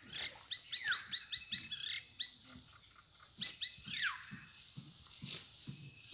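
High-pitched animal calls: quick runs of chirps in the first two seconds and again about three and a half seconds in, with a few falling whistled glides. Soft, short thuds are heard beneath them.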